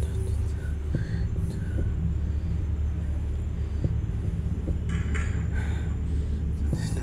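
Steady low rumble throughout, with a few faint light clicks and faint high chirping tones recurring every half second or so.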